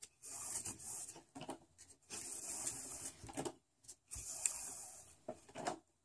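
Nylon paracord being pulled through the loops of a bracelet weave, the cord hissing as it slides against itself in three long pulls, each a second or more.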